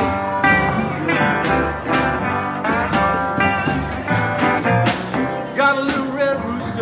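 Live blues band playing an instrumental passage: a metal-bodied resonator guitar leads with notes that bend and slide, over a drum kit with regular cymbal strokes and a piano.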